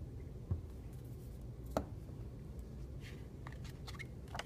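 Faint handling of paper and a glue bottle on a table: a few soft taps and clicks and a light paper rustle as the glued paper cut-out is turned over, over a low steady room hum.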